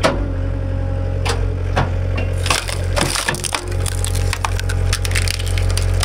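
A firewood round cracking and splintering as the hydraulic splitter of a Halverson 120 skid-steer-mounted firewood processor drives it through the wedge. There are a few sharp cracks in the first two seconds, then dense splintering from about two and a half seconds on. Under it the track loader's engine runs steadily, powering the hydraulics.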